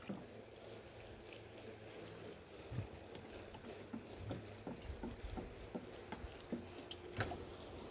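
Water sprinkling from a watering can's rose head onto damp straw mulch and mushroom compost in a plastic tub. It makes a faint, steady patter with scattered small drip ticks.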